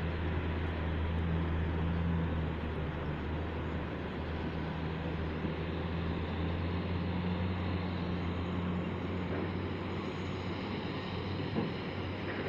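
A steady low engine drone with a constant rushing hiss over it.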